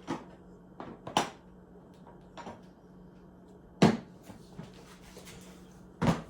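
Handling knocks as a camera is put back on its tripod and a toolbox is moved: four separate sharp knocks and clunks, the loudest about four seconds in.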